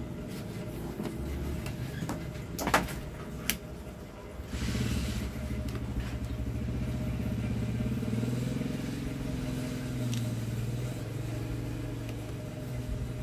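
A motor vehicle engine running, a low drone that starts about four and a half seconds in and slowly rises and falls in pitch. Shortly before it come two or three sharp clicks.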